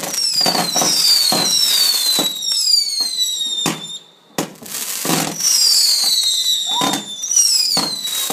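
Consumer firework barrage going off: whistles falling in pitch, one after another, mixed with sharp bangs in quick succession, with a brief lull about four seconds in.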